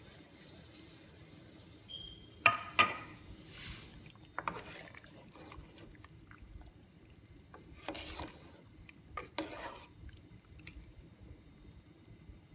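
Pieces of black chicken being stirred with a spoon in a pot of boiling water: liquid sloshing and splashing, with two sharp knocks of the spoon against the aluminium pot about two and a half seconds in, the loudest sounds.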